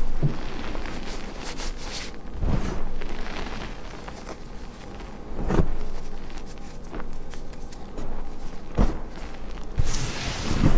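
Hands pressing and sweeping through loose crushed gym chalk powder: soft crunching and gritty rustling, with a dull thump about every three seconds as the palms push down into it.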